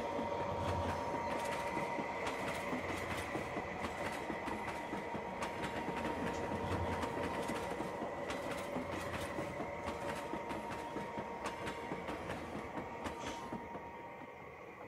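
00 gauge model goods train running along the track: a steady electric motor whine with many small clicks as the wagon wheels cross the rail joints. The sound fades about 13 to 14 seconds in as the train moves away.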